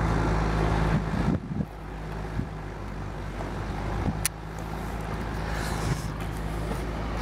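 An engine running steadily with a low, even hum under a low rumble. It drops in level about a second in, with a single short click a few seconds later.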